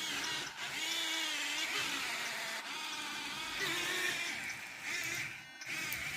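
Small electric motors and gearboxes of 1:50-scale remote-control construction machines whining, the pitch wavering up and down as they run.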